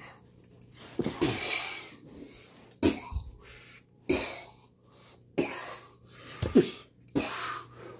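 A string of about six short, sharp, breathy huffs and grunts, roughly one a second, each starting abruptly and fading quickly: effortful exhalations during rough play-wrestling.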